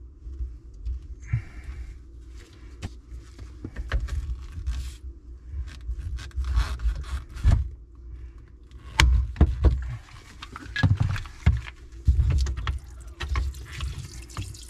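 PEX tubing cutter being fitted onto a PEX water line and squeezed slowly through it: scattered clicks and scrapes, with a sharp snap about nine seconds in and a run of clicks after it. Near the end water starts trickling out of the cut pipe.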